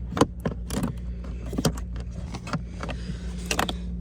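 Irregular clicks and knocks of a small ratchet and T20 bit being worked on screws, with the sharpest click about a quarter second in, over a steady low hum.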